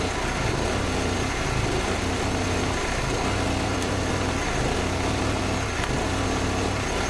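TIG welding arc on steel tubing, a steady hiss and buzz with a low hum underneath, cutting off abruptly at the very end as the arc is stopped.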